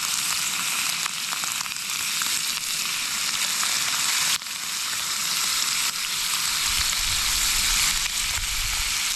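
Bacon frying in a pan, a steady crackling sizzle.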